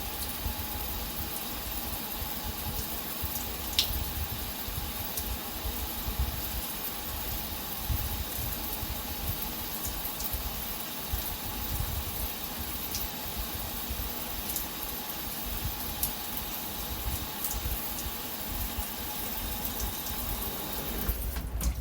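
Shower running steadily: a constant spray of water hissing and splashing onto the floor of a small bathroom, with scattered droplet ticks. Near the end the water is shut off and the hiss drops away.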